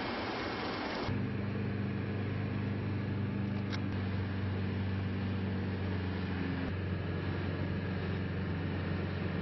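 Wind rushing on the microphone, then from about a second in a ship's engine running with a steady low drone over a hiss of wind and sea.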